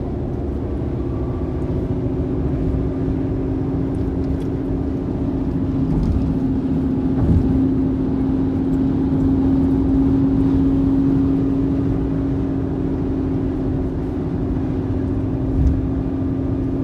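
Car driving, heard from inside the cabin: steady engine and road rumble with a constant low drone.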